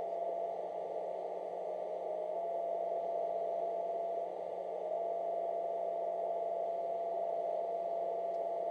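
Ham radio receiver audio: steady band hiss with a constant whistling tone, a birdie (an unwanted carrier from shack electronics), as a phase-shifting noise eliminator is adjusted to null it.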